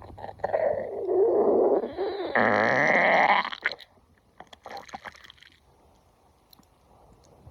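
Very loud stomach growling: a long gurgling rumble with a wavering pitch lasting about three seconds, then a shorter, fainter gurgle a second later.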